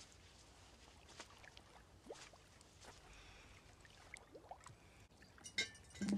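Faint rustling and scattered soft ticks over a quiet outdoor hush as a dress is pulled on, with a louder short knock right at the end.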